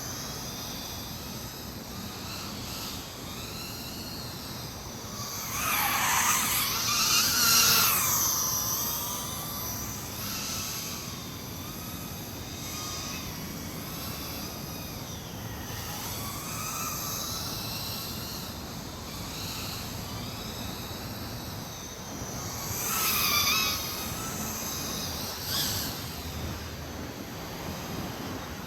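Small 260 mm FPV racing quadcopter's electric motors and propellers whining in flight, the pitch rising and falling with the throttle. It gets louder twice as it passes close, once about a fifth of the way in and again near the end.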